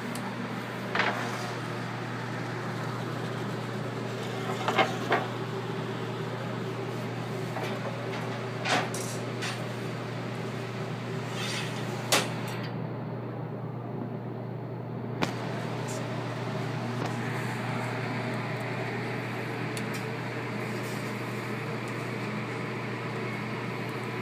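Pizzeria kitchen background: a steady low hum with a handful of sharp knocks and clatters scattered through, as a pizza is slid on a wooden peel into a wood-fired oven and bakes.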